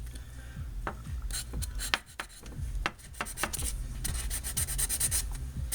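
100-grit sandpaper rubbed by hand over the clear coat of a carbon fibre crank arm, roughing up the top layer. Scattered strokes at first, then quick, even back-and-forth strokes from about four seconds in.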